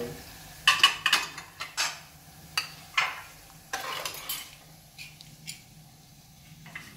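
Metal ladle clinking and scraping in a wok of hot oil as fried meat pieces are scooped out, with a light sizzle of frying. A quick run of clinks and scrapes fills the first four seconds or so, then only a few soft taps.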